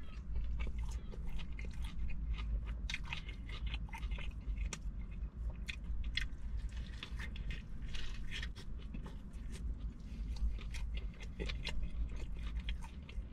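Close-up chewing of a juicy burger: wet, irregular smacking and crunching sounds of mouthfuls being chewed.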